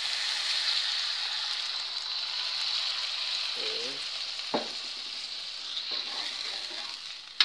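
Ground chili-and-shallot spice paste, thinned with a little water, sizzling in a metal wok as it is stirred with a metal spatula; the sizzle slowly weakens. A single sharp knock comes about four and a half seconds in.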